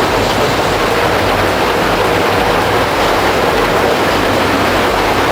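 Heavy machinery running: a loud, steady, dense noise with a low rumble underneath, holding evenly throughout.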